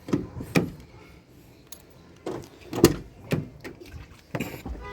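A few irregular knocks and clicks, the loudest nearly three seconds in, with quiet between; no engine cranking or running is heard.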